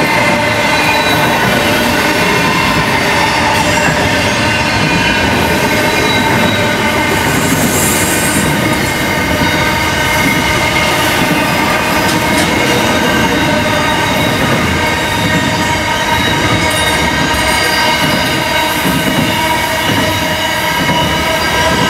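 Container freight train wagons rolling past at steady speed: a loud, continuous rumble and rattle of wheels on rail, with steady high ringing tones over it.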